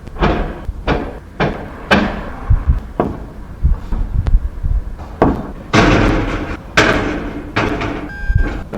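Repeated loud bangs and clatter of hard objects being dropped, knocked or slammed, about one or two a second, some ringing briefly, with a short high squeak near the end.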